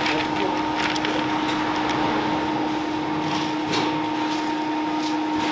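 Steady machine hum from commercial kitchen equipment, holding two constant tones, a low one and a higher one, over a hiss. A few faint short rattles come from nuts being pushed around a metal baking tray with a plastic spatula.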